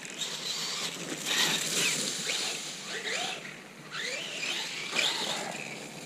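Losi Lasernut RC truck's brushless motor and geartrain whining, the pitch rising and falling again and again as the throttle is worked through the turns, over a steady noisy hiss.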